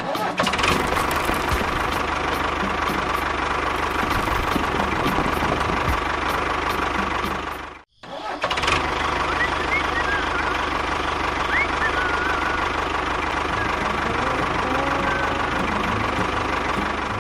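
Small motor of a homemade miniature construction vehicle running steadily with a thin, even whine. It stops abruptly about eight seconds in and starts again almost at once.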